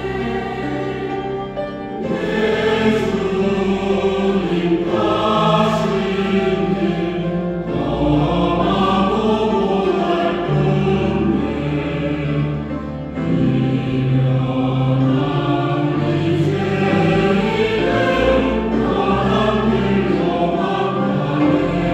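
Church choir singing a hymn anthem with instrumental accompaniment underneath.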